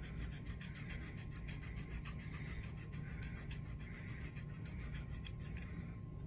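A cheap emery nail file rubbed quickly back and forth along the rough edge of a cross-stitch keychain piece, sanding it smooth, a steady run of rapid rasping strokes.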